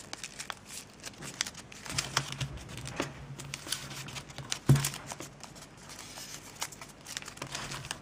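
Origami paper crinkling and crackling as the folded model is opened up and creased by hand, with a string of small crisp clicks and one sharper snap about halfway through.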